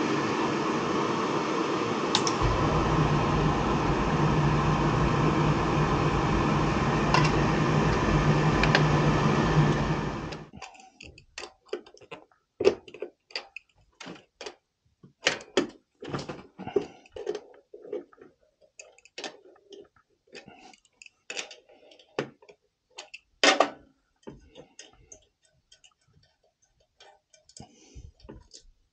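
Riello oil burner running with a steady mechanical whir; about two seconds in a deep steady rumble joins as the flame lights, and about ten seconds in the burner shuts off suddenly. Afterwards come scattered clicks and knocks of an adjustable wrench on the burner's metal housing.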